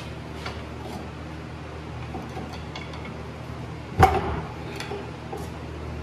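Wrench and bolt clinking on the driveshaft flange of a pickup as its bolts are taken out, with light clicks and one sharp metal clank about four seconds in, over a steady low hum.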